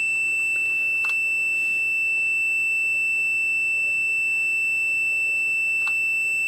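Fluke 175 multimeter's continuity beeper giving one unbroken steady high-pitched tone, with its probes across the temperature controller's relay contacts: the relay output is stuck on, its contacts held closed. Two faint clicks come about a second in and near the end.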